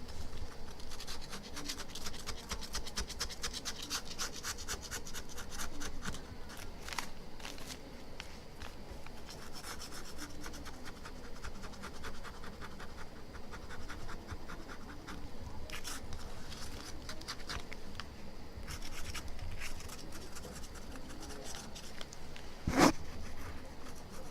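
Plastic knife scraping old glue off a phone's LCD panel in quick, repeated strokes, the glue softened with a removal liquid. A single sharp knock near the end.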